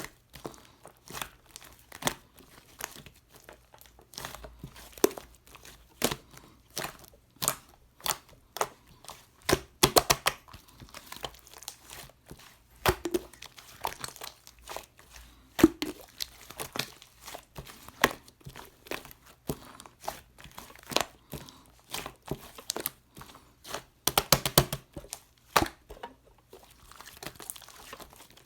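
Slime being squeezed and pressed by hand, making irregular crisp pops and crackles, with quick runs of them about ten seconds in and near the end.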